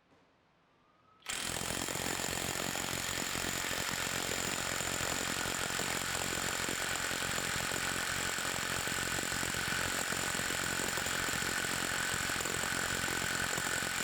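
Cordless mid-torque impact wrench hammering continuously at full power, tightening a bolt in forward on a torque tester, with a steady high whine over the rapid blows. It starts about a second in after a brief silence.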